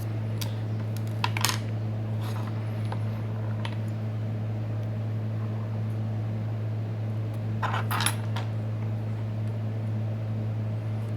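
Sharp clicks and light metallic clinks of small tools and phone parts handled on a repair bench, loudest about a second and a half in and again about eight seconds in, over a steady low hum.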